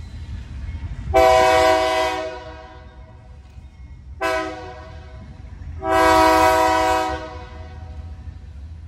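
Diesel locomotive air horn sounding a long blast, a short blast and another long blast, the close of a grade-crossing signal, over a steady low rumble.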